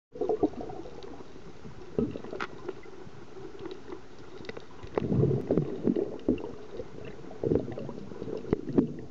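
Muffled underwater sound heard through a submerged camera: a steady low hum with bubbling and gurgling water, broken by scattered sharp knocks. The bubbling grows loudest about five seconds in.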